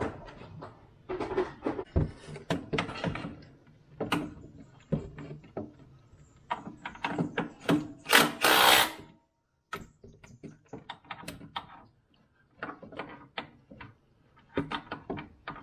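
Irregular metal clinks and knocks from hand tools and hardware being worked on the underside of a John Deere 430 garden tractor, with a short loud rushing noise about halfway through.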